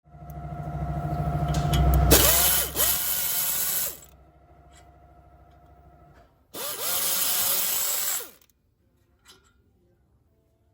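A power tool running: it winds up, runs loud for about two seconds, idles quieter, then runs loud again, winding down in pitch after each loud run.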